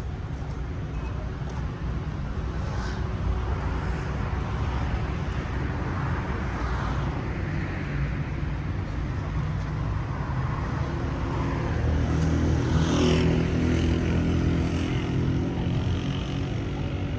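City street traffic: a steady rumble of cars running past, with one engine passing closer and louder about two thirds of the way through.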